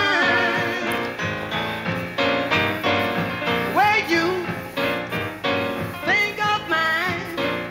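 Background music: a song with a singing voice over an instrumental accompaniment with a regular beat.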